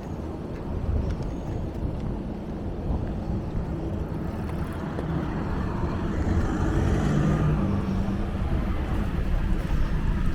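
Outdoor ambience with wind rumbling on the microphone and a motor vehicle passing, loudest about seven seconds in.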